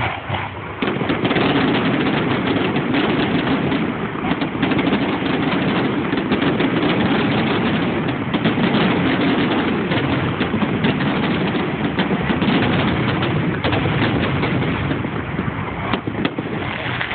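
Dense, continuous barrage of fireworks: many overlapping bangs and crackles, starting abruptly about a second in.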